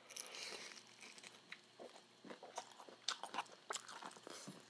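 A bite into crispy fried chicken (Jollibee Chickenjoy), then chewing: faint, irregular crunches and crackles of the breaded skin.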